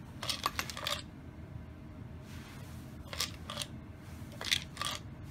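Dry cat treats rattling inside a plastic Friskies Pull 'N Play treat-dispensing toy as it is handled and tipped. The clicks come in three short bursts, about a second apart near the start and twice more in the second half.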